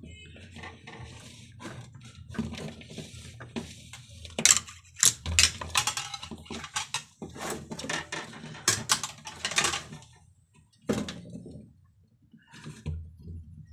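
Irregular clicks, taps and clinks of hands handling parts while fitting a fridge thermostat, busiest in the middle, over a faint low hum.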